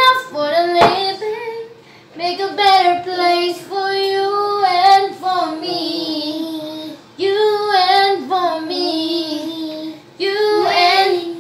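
Singing: one high voice carrying a slow tune in long held notes, broken by short pauses. There is a single sharp knock about a second in.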